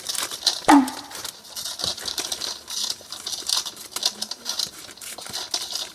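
Scissors snipping through newspaper paper, a quick run of small clicks and paper rustling. About a second in there is a sharp, short squeak that falls in pitch, the loudest sound.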